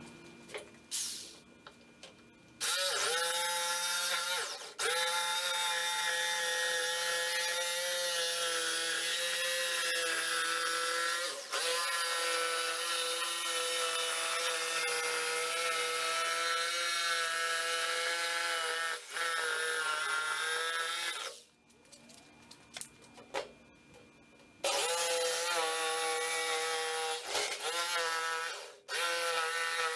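Corded jigsaw cutting plywood along a curved line, its motor running with a steady whine. It stops for about three seconds two-thirds of the way through, starts again, and breaks off briefly near the end.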